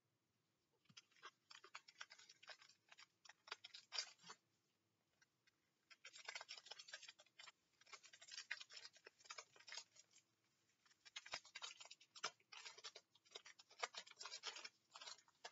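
Faint crinkling and crackling of a foil trading-card pack wrapper being torn open and handled, in three stretches of small crackles.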